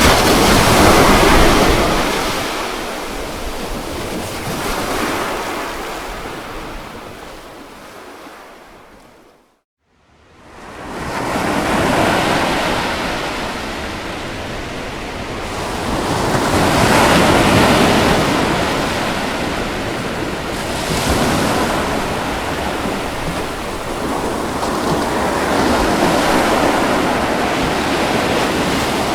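Ocean waves washing ashore, swelling and ebbing in slow surges. About ten seconds in the sound fades away to a moment of silence, then swells back in.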